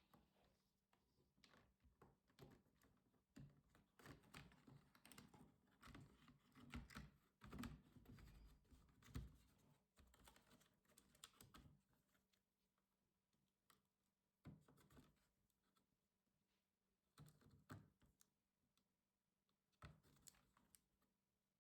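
Faint clicking and tapping of plastic laptop parts being handled during disassembly. The clicks are busy through the first half, then come only a few at a time.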